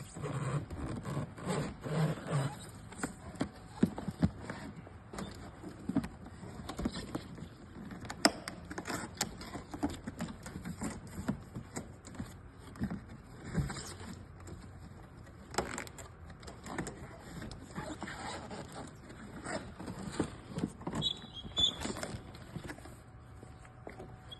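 Cardboard display pieces being handled and fitted together: irregular rustling and scraping with frequent light knocks and taps.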